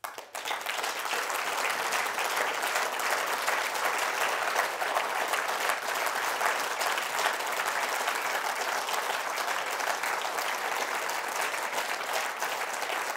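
Audience applauding: many hands clapping at once, starting abruptly and holding steady.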